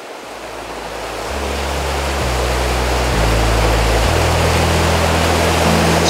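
Waterfall rushing, growing louder over the first two seconds, with low sustained music notes fading in and stepping to a new pitch about every second.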